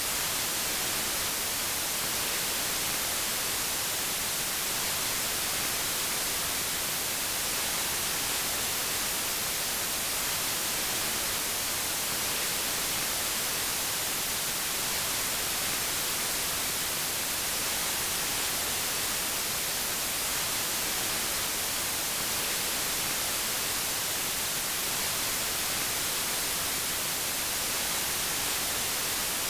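Steady white noise: an even, unchanging hiss, brightest at the top.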